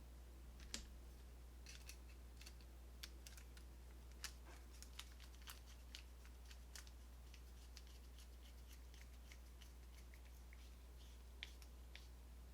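Faint, irregular small metal clicks and light scrapes of an American Lock 200 series padlock core being handled and fitted back into the padlock body.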